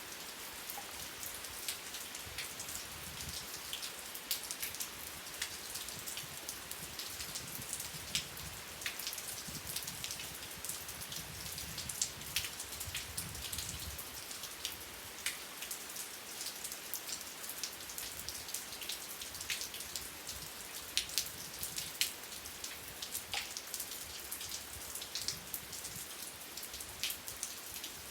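Steady rain, an even hiss with many separate drops striking sharply on a surface close by.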